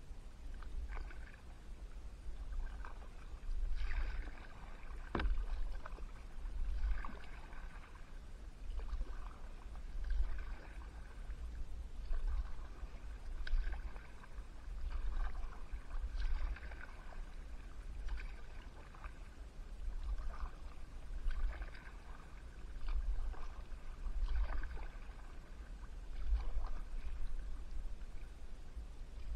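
Kayak paddle strokes through calm river water, the blades dipping and pulling in an even rhythm of about one stroke every second and a half, with splashes and drips and a low rumble underneath. One sharp knock about five seconds in.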